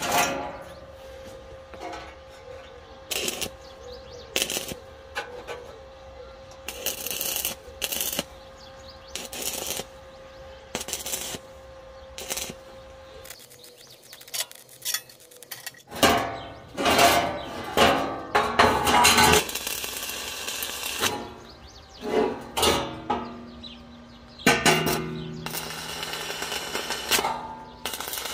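Steel pieces clanking and being knocked together in an irregular series of sharp metal knocks and clinks. A thin steady tone runs under the first half, and the sound drops to near quiet for a couple of seconds about halfway through.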